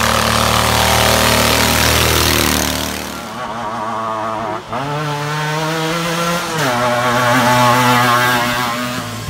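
Small engines of racing ride-on lawnmowers running hard under throttle. The pitch holds steady, shifts after about three seconds, then climbs and drops back near the middle.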